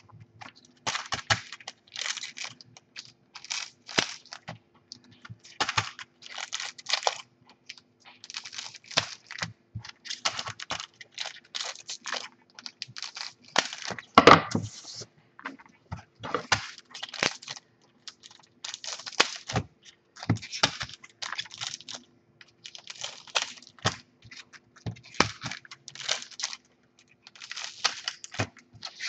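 Scissors snipping open trading-card pack wrappers one after another, each cut a short crinkling snip, about one a second, with one sharper snip about halfway through.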